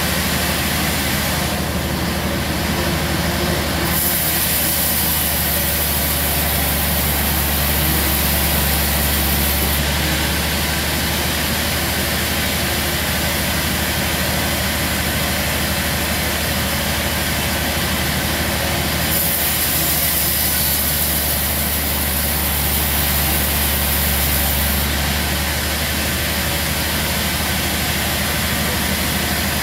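Sawmill band saw running steadily with a low motor drone while its blade saws through a large log. A brighter, higher hiss comes in twice, for about six seconds each.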